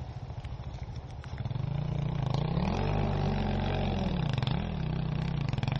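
KTM enduro motorcycle engine running low, then revved up about a second and a half in and held at higher revs, with a short dip and recovery in the second half.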